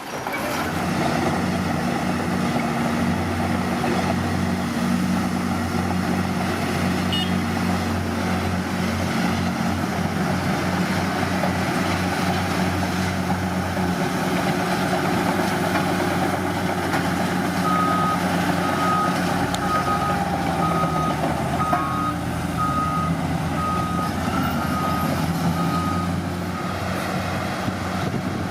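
Heavy earthmoving machine's diesel engine running steadily. A little past halfway its reversing alarm starts, about ten short high beeps a little over one a second, which means the machine is backing up; the beeping stops shortly before the end.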